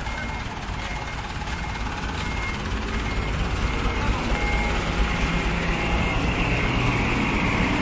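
Truck engine running with a steady low rumble that grows gradually louder, with faint short high beeps now and then.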